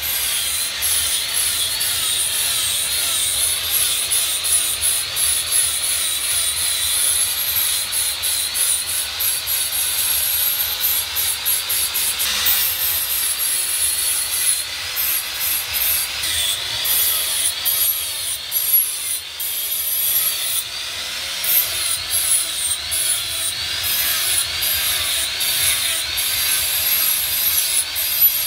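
Handheld angle grinder with an abrasive disc grinding a steel knife blank: a steady high whine that wavers up and down in pitch as the disc is pressed against the metal, over a harsh scraping hiss.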